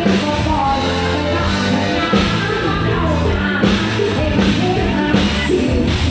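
Live band music through a loud PA, with a woman singing lead over a drum kit's steady beat.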